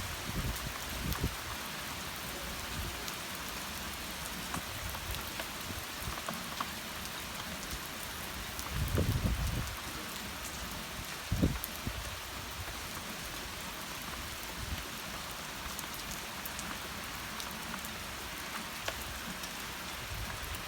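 Steady rain falling, an even hiss with scattered drop taps. There is a low rumbling thud about nine seconds in and a sharper, louder one a couple of seconds later.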